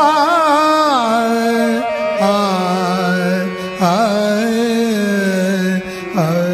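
Indian devotional music: long, ornamented melodic phrases that swoop and waver in pitch over a steady drone, with a new phrase starting about every two seconds.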